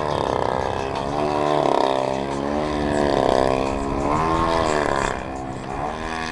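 Engine and propeller of a giant-scale RC aerobatic airplane, held nose-up in a hover and climbing. The pitch rises and falls over and over as the throttle is worked.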